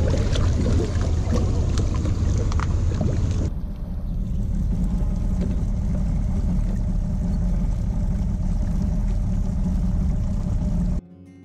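Boat motor running with the boat underway, a steady low rumble. For the first few seconds it is mixed with a rushing noise and scattered clicks. Soft music starts just before the end.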